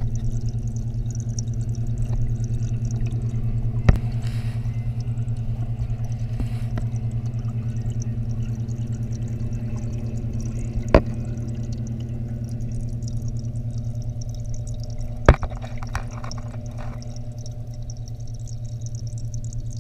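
Reef aquarium equipment running: a steady low pump hum with water flowing and trickling. Three sharp knocks stand out, spread through it.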